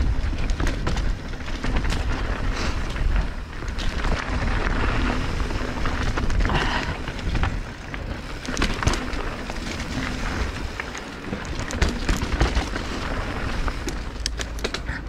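Mountain bike riding down a loose dirt trail: wind rumbling on the microphone, tyres crunching over dirt and stones, and frequent short rattles and knocks from the bike over bumps.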